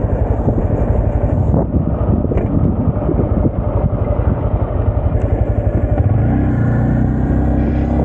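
Honda Grom's single-cylinder 125cc engine running while riding, a fast, dense pulsing. About six seconds in it settles into a steadier, even tone.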